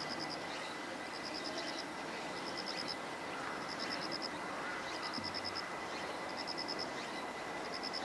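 Insect chirping: a short, high trill of about six quick pulses, repeated roughly once a second, over a steady hiss.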